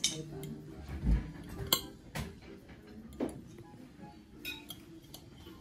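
Cutlery clinking against plates and dishes at a meal: a handful of separate sharp clinks, the sharpest a little under two seconds in, with a soft low knock just before it.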